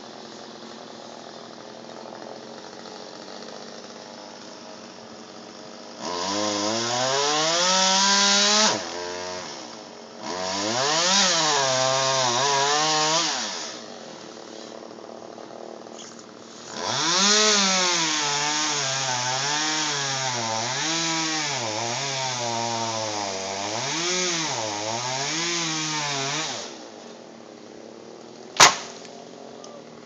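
Chainsaw cutting wood in three long runs, its engine pitch rising and falling as it works under load, with a low steady running sound between the first spells. A single sharp crack comes near the end.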